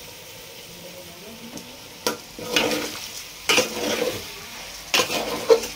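Metal spoon stirring and scraping rice in an aluminium pot, a few scraping strokes starting about two seconds in, over a faint steady sizzle of frying.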